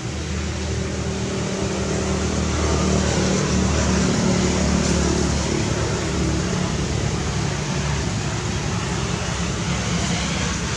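A motor vehicle engine running steadily, a low hum with a broad hiss of traffic, swelling slightly a few seconds in.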